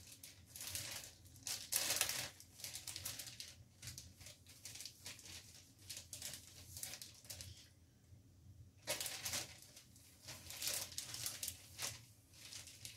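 Zip-top plastic bag crinkling in irregular bursts as it is squeezed and pressed shut by hand, with a brief lull about eight seconds in.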